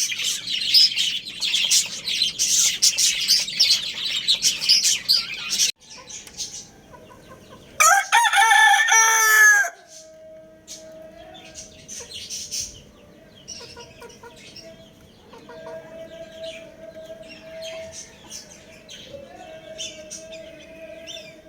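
A flock of small birds chirping busily for about six seconds. Then a rooster crows once, loudly, for about a second and a half, followed by faint scattered chirps over a steady hum.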